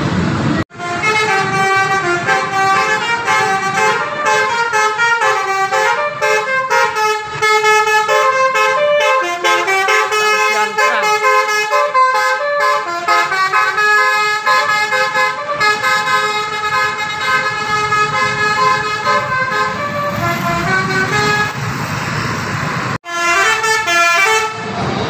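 Bus telolet horn, a multi-trumpet air horn on a tour coach, playing a fast tune of stepped notes that sounds almost continuously for about twenty seconds. After a break near the end, a short burst of the tune is heard again.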